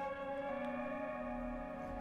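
Background music: soft, sustained ambient tones that hold steady.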